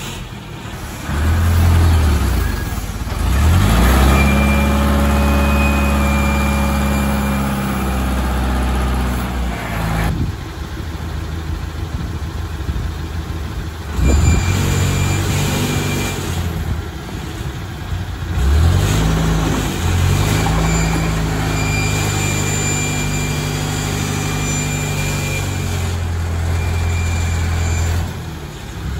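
Diesel engine of an Escorts Hydra 12 mobile crane revving up and holding high revs twice, each time for several seconds, as it lifts logs. A thin high whine comes and goes over it.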